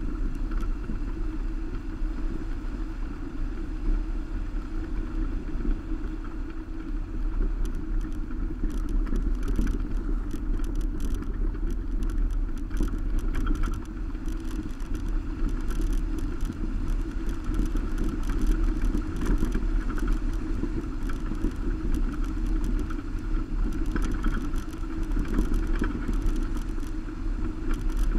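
Steady driving noise of a Subaru Baja on a gravel road, heard from a camera on its roof rack. A continuous low rumble and hum from the tyres, engine and wind, with scattered light ticks and rattles.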